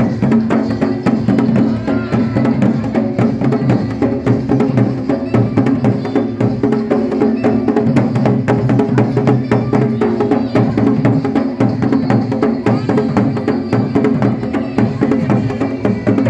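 Garhwali dhol and damau drums playing a fast, steady mandan rhythm for a circle dance, with dense, evenly repeating strokes.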